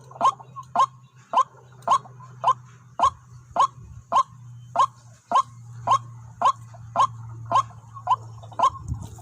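White-breasted waterhen calling: a short, sharp note repeated at an even pace of just under two a second, over a faint low hum.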